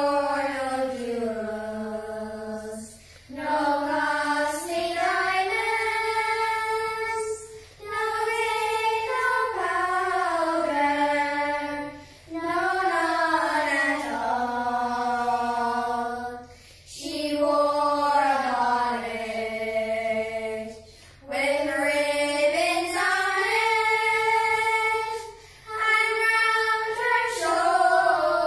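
A group of children singing one melody together without accompaniment, in phrases of a few seconds each, with a short break for breath between phrases.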